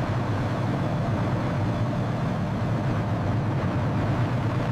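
Steady jet engine noise of an F-117 Nighthawk in flight: an even, low rumble with a faint steady whine above it.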